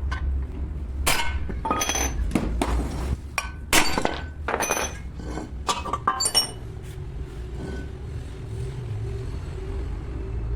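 Metal tools and parts clinking and knocking: a run of irregular sharp strikes with a ringing metallic edge over the first six or so seconds, then a steady low hum.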